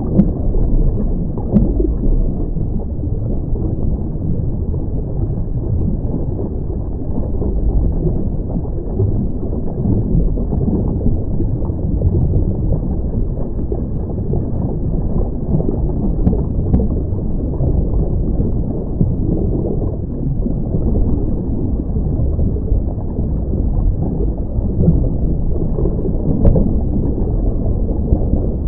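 Muffled underwater noise heard through a diving camera's housing: a steady low rumble, with a few faint clicks here and there.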